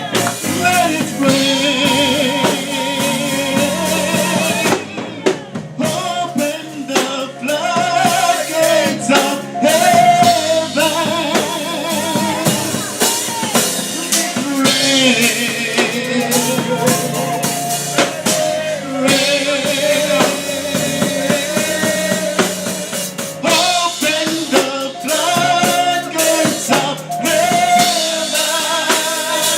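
Men's choir singing held, wavering lines over a live band, with a drum kit keeping the beat.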